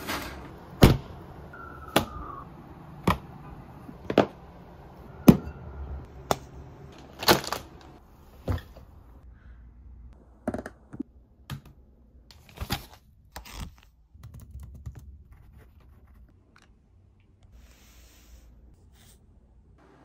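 Sharp clicks, about one a second for the first eight seconds, then irregular, fainter clicks that die away.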